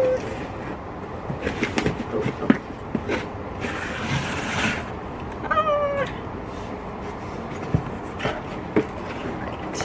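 A cat meows once about halfway through, a short call that falls slightly in pitch, among the rustling and scraping of a cardboard box being handled and opened.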